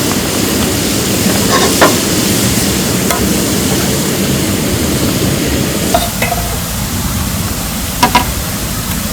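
Steady rain falling, a dense hiss, with a few heavier drops tapping sharply now and then, two close together near the end. The deeper part of the rush eases about six seconds in.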